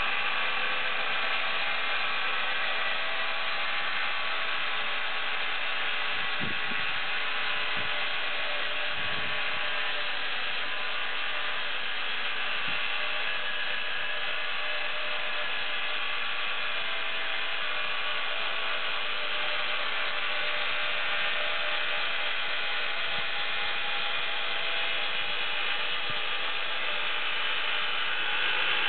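Homemade bandsaw mill running steadily and sawing along a pine log, a continuous mechanical whine with several steady tones over the noise of the cut.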